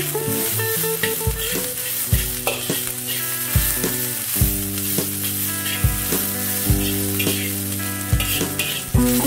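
Rice sizzling as it is stir-fried in a metal wok, a metal spatula scraping and tossing it against the pan, over background music with a steady low beat.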